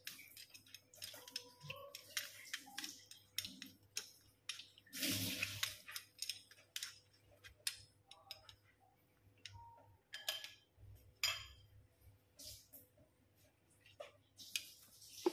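A metal spoon scraping and pressing wet tamarind pulp against a plastic mesh strainer: scattered light clicks, scrapes and wet squishes as the juice drains into the bowl below. Near the end the strained tamarind juice is poured from the bowl.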